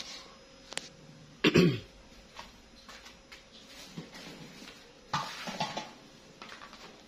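A person coughs once, short and loud, about a second and a half in. A few brief rustling, knocking sounds follow about five seconds in.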